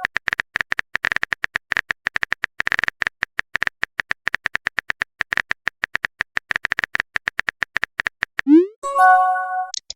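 Rapid phone-keyboard tapping clicks, several a second, for about eight seconds: a message being typed. Near the end comes a short upward swoop and a chime of a few steady tones, like a chat app's send-and-receive message sounds.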